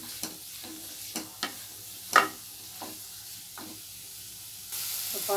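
A wooden spatula stirring and tossing shredded vegetables in a non-stick kadai, with irregular scrapes and knocks against the pan over a faint frying sizzle; the loudest knock comes about two seconds in. Near the end a louder steady hiss comes up suddenly.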